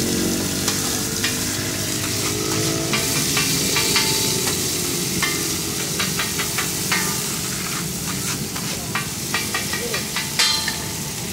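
Sliced onions sizzling in oil on a large flat steel griddle (tawa), with a metal spatula clinking and scraping against the griddle as they are stirred. The clicks come in irregular runs, with one sharp, loud clink near the end.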